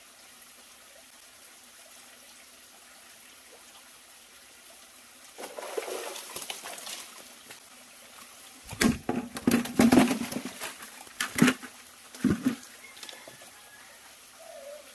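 Small stream trickling steadily, with a cluster of loud knocks and rustles in the second half.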